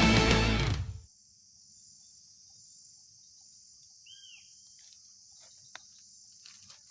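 Rock background music fading out in the first second, then a faint, steady, high-pitched insect chorus. A single short downward-curving bird call comes about four seconds in, and a few faint clicks near the end.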